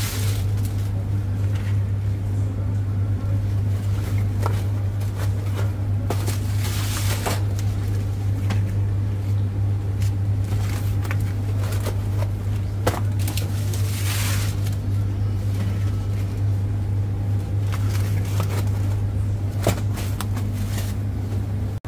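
Restaurant kitchen ambience: a steady low machine hum with scattered knocks and clatter, and two brief rushes of hiss about seven and fourteen seconds in.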